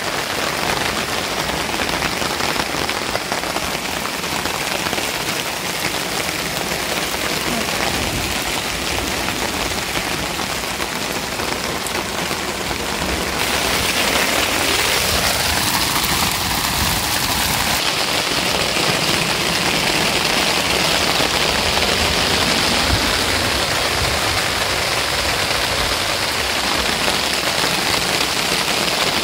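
Heavy storm rain pouring steadily, growing a little louder about halfway through.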